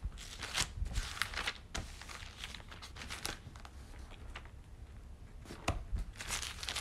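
Thin Bible pages being flipped through by hand, a series of short papery swishes and crinkles, busiest at the start and again near the end.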